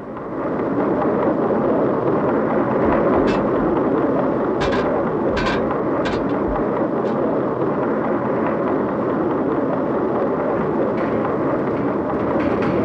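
Concrete-mixing plant machinery running with a steady rumbling churn. A few sharp clanks come between about three and six seconds in.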